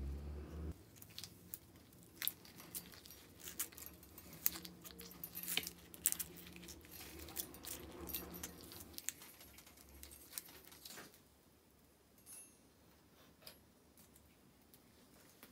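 Thin wire being handled and twisted around the ring end of a polished steel wrench: faint irregular rustles and small metallic clicks and ticks, thinning out after about eleven seconds.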